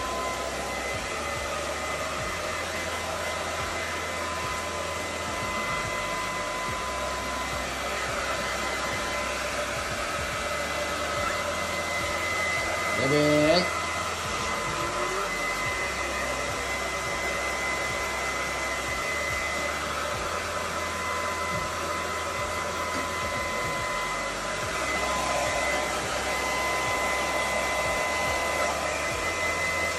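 Handheld hair dryer blowing steadily while drying a dog's wet coat, its steady noise carrying a high whine. About halfway through, a short rising cry sounds briefly over it.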